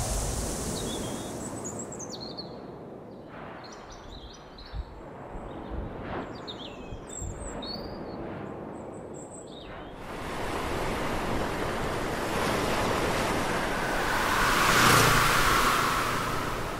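Outdoor nature ambience with birds chirping in short high calls over a low background noise, then about ten seconds in a broad rush of noise that swells to a peak near the end and eases off as a low hum comes in.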